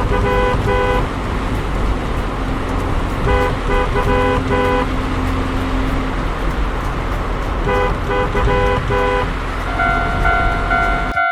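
Shinkansen bullet train running past a level crossing with a steady rumble, its horn sounding three short bursts of quick toots a few seconds apart. Near the end the level-crossing bell starts ringing.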